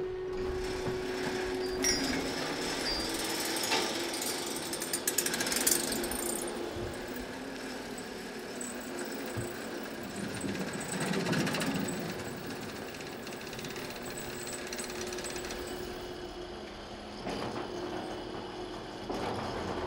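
Gantry crane hoisting a rough granite block on chains: a steady electric motor hum with mechanical rattling, and a burst of rapid clattering about four to six seconds in.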